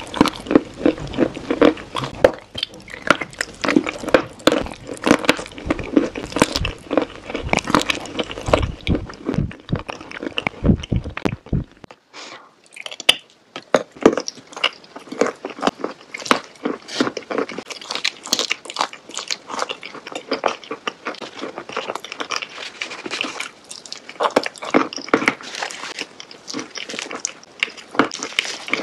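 Close-miked eating sounds: dense, irregular biting, crunching and chewing. A low rumble under the chewing drops out about twelve seconds in, leaving only the crisp mouth noises.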